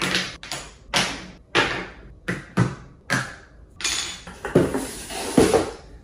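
Makeup bottles, compacts and tubes being picked up and set down one after another on a hard floor: a run of short clacks and knocks, roughly two a second, with busier rummaging in the second half.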